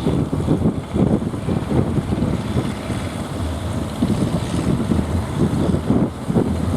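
Wind buffeting the microphone: a heavy, gusty, uneven rumble.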